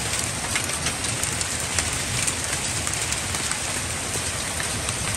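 Rain falling steadily on a dirt street: a dense, even hiss with scattered drop taps.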